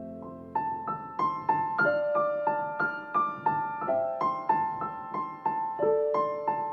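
Background music: a piano playing a gentle melody of single notes, about three or four a second.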